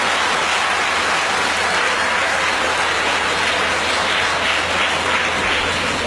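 Audience applauding: dense, steady clapping, with a faint low hum underneath.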